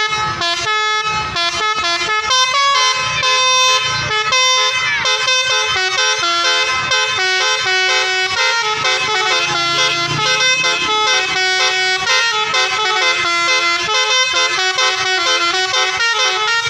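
Basuri telolet multi-tone bus horn playing a tune: several horn tones sound together and step quickly from note to note, without a break.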